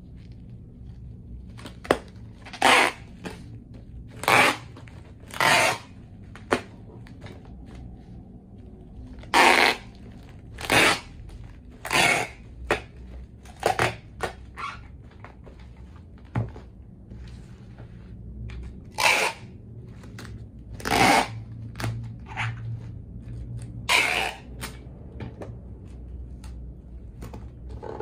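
Packing tape being pulled off a handheld tape dispenser in about a dozen short, loud rips, as tape is run over a bubble-wrapped box.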